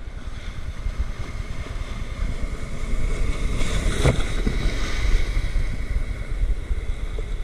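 Ocean surf washing around a camera held at water level: a steady low rumble of water and wind on the microphone, with a sharp splash about four seconds in as a breaking wave crashes over the lens.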